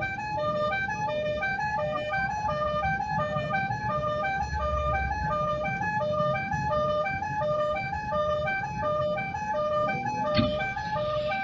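Telolet horn, a multi-trumpet bus air horn, playing a quick repeating melody of short notes without a break. Near the end there is a sharp knock followed by a short hiss.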